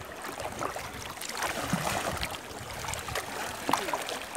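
Shallow seawater splashing and sloshing in irregular small splashes as a swimmer floating on an inflatable ring paddles with her hands.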